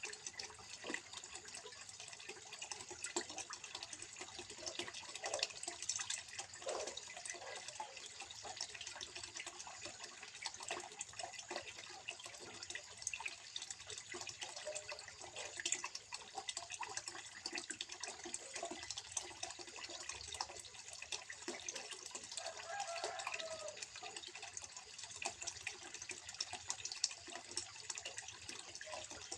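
Water trickling steadily into a small fish pond, a continuous splashing full of small irregular drips.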